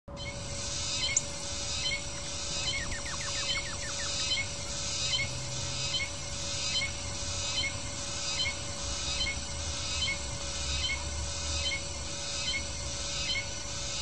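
A short, rapid bird trill about three seconds in, over a steady hum and a hiss that swells evenly about three times every two seconds.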